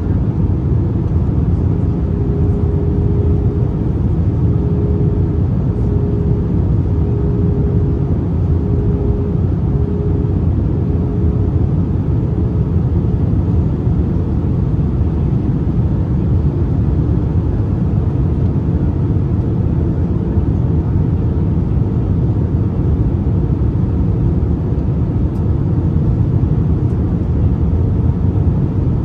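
Steady cabin noise inside an Airbus A321-231 on approach: a low rumble of its IAE V2500 engines and the rushing airflow. A faint hum runs with it, weakens about twelve seconds in and comes back faintly near the end.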